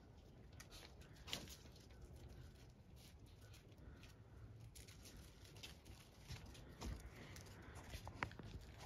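Very faint sound of a five-week-old Labrador puppy's paws on gravel and snow: soft scattered ticks and crunches, a few a little louder about a second in, near seven seconds and near the end, over a low steady rumble.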